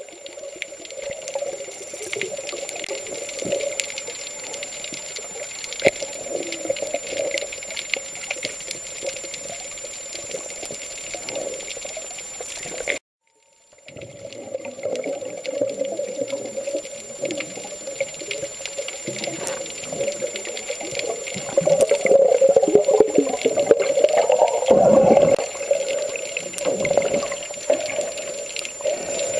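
Water noise as heard by a camera underwater: a continuous rushing wash with scattered small clicks and a thin, steady high whine. It cuts out for about a second some thirteen seconds in, then swells louder for a few seconds about three-quarters of the way through.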